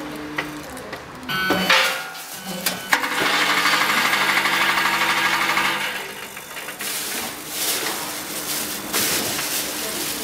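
Stainless-steel linear weigher running on a glucose weighing cycle. A couple of sharp metal clacks come a second or two in. Then the vibratory feeder buzzes loudly and steadily for about three seconds as it feeds glucose into the weigh hopper, and near the end there is a rustling hiss of product pouring through.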